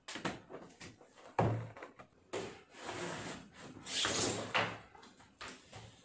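A cardboard package being cut open and handled: a series of knocks and a heavier thump about a second and a half in, with scraping and rustling as the box is worked open.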